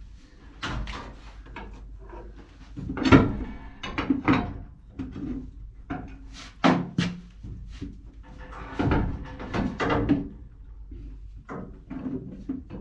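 Irregular metal knocks, clunks and scrapes from an anode rod being bent and worked at the top of a water heater, with the sharpest knock about three seconds in.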